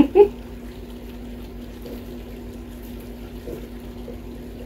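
Two short louder sounds right at the start, then a steady hum with faint small clicks of kitchen scissors snipping pepperoncini peppers into rings.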